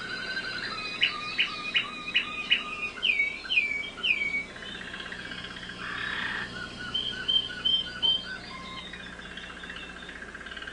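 American Singer canary singing a varied song of rapid trills and rolls, with runs of repeated notes that slide downward and a brief harsh rasping note about midway.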